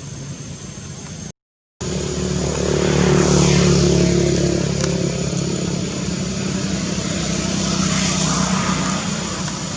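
A motor vehicle's engine running close by, a steady hum that swells about three seconds in and again near the end. The sound cuts out completely for about half a second near the start.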